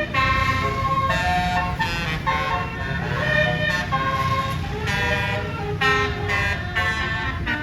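A tour bus's telolet horn, a set of switched air horns, playing a tune of short horn notes that change pitch every half second or so, over the steady low rumble of the bus engine.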